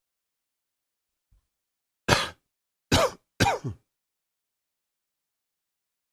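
A person coughing three times in quick succession, short coughs starting about two seconds in.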